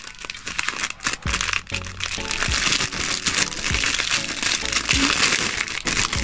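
Thin clear plastic bag crinkling and rustling as it is handled and pulled open around a plastic beard-shaping comb, with background music underneath.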